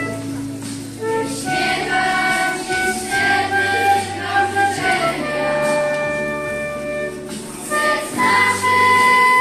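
Flute playing a melody over a held low accompaniment, with children's voices singing along.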